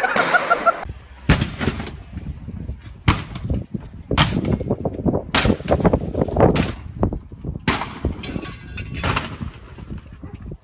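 A hand-held red police battering ram striking a house's front door over and over: about eight heavy blows at irregular intervals, each a sharp bang with a short ring.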